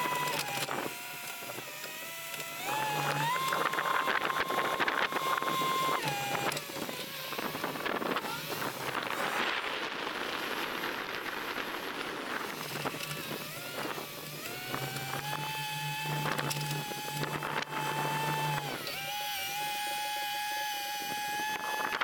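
Tractor and tractor-drawn peanut combine running, with a steady machine whine over a low hum. The whine's pitch rises a few seconds in, drops again soon after, and shifts a few more times, with a rougher rattling stretch in the middle.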